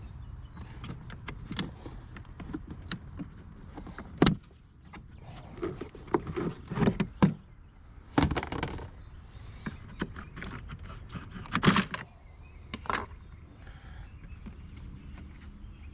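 Scattered knocks, clicks and scraping of metal car parts and tools being handled, the sharpest knock about four seconds in, over a steady low hum.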